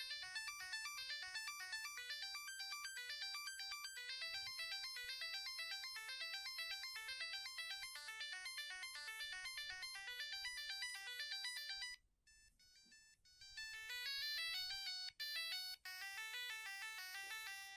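Siemens A50 mobile phone playing its ringtones: a fast electronic melody of short beeping notes stops about twelve seconds in. After a brief pause, a second ringtone begins with sliding notes.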